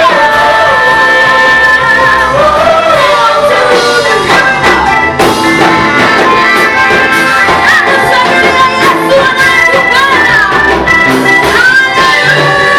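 A worship group singing a praise song with sustained, sliding vocal lines over instrumental accompaniment.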